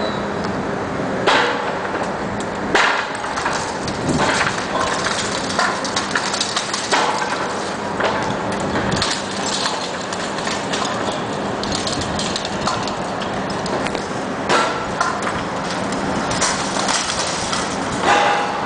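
Bricks and masonry crashing down in a series of clattering impacts a second or several apart, as a John Deere 450 knocks a brick wall down with a pole. Its engine hums steadily underneath.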